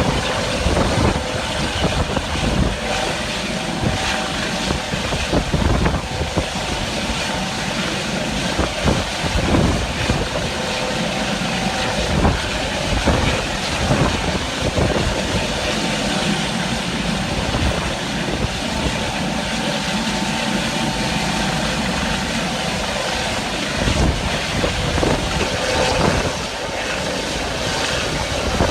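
Helicopter hovering over a ship, its rotor and engine running steadily, with strong wind buffeting the microphone in gusts.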